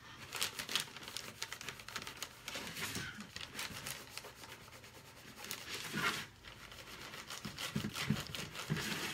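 Tissue crinkling and rubbing as gloved hands wipe soap batter off the rim of a soap mold: a dense run of small crackles and rubbing sounds.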